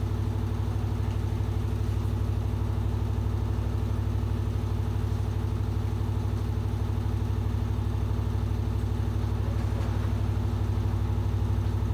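Washing machine running under test: a steady, deep motor hum with a fast, even pulsing.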